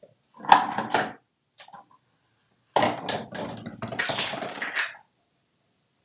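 Hard plastic toy cups clattering and scraping against a bathroom countertop as an African grey parrot knocks them about and turns one over: a short clatter about half a second in, then a longer run of knocks and scraping from near the middle.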